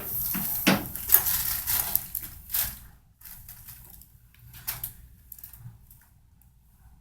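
Rustling and shuffling with a few knocks as a person climbs onto a padded chiropractic treatment table and settles face down. It is loudest over the first three seconds, then fainter rustles follow as she settles.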